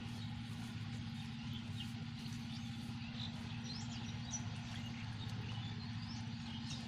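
Scattered short, high bird chirps over a steady low hum.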